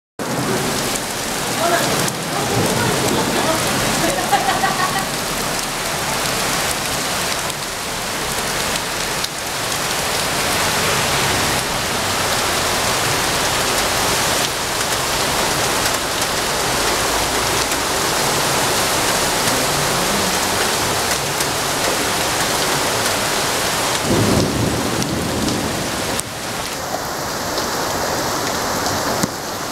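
Heavy rain pouring onto a street, parked cars and pavement: a steady, dense hiss of a downpour.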